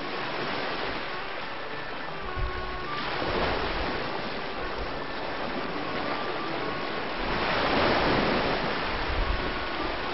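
Rushing water noise, like surf or a boat's wash, that swells about three seconds in and again around eight seconds. Faint background music plays underneath.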